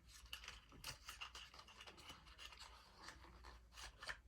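Faint scratching and rustling of packaging being opened by hand, with a scattering of small clicks.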